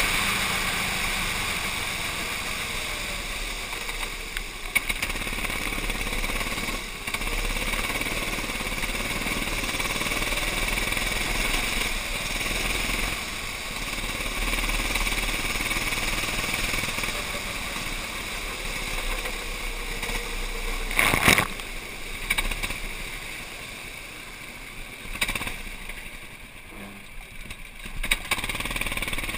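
Racing kart engine running at speed on a wet track, with a sharp knock about 21 seconds in. Near the end the engine note falls quieter as the kart slows and comes to a stop.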